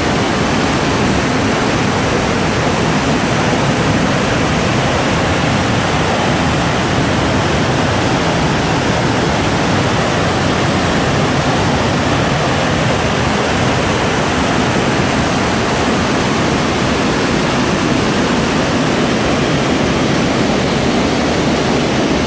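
Waterfall: white water plunging and churning through a narrow rock gorge, a loud, steady rush of water with no breaks.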